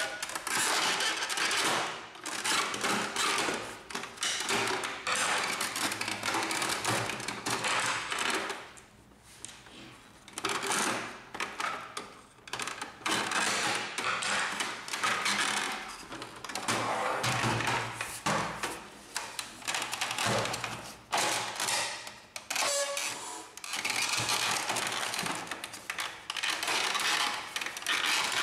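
Hard plastic printer housing being pried and handled with a screwdriver as a side panel is worked free of its hooks: scraping, rubbing and clicking of plastic on plastic, in long stretches broken by a few short pauses.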